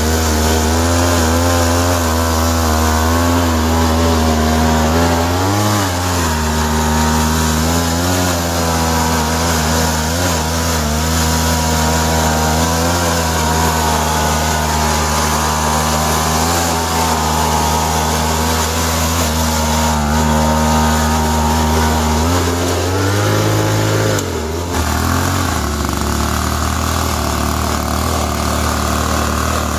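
Homemade radio-controlled model dump truck running, a steady engine-like drone whose pitch wavers up and down, dropping and shifting briefly about 23 seconds in.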